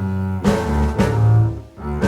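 Background music played on low bowed strings, cello and double bass, with sustained notes changing about every half second and a short break near the end.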